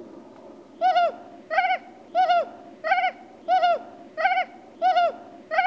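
A bird calling over and over: about eight short, identical calls, each dropping in pitch at its end, repeated evenly about three every two seconds, starting just under a second in.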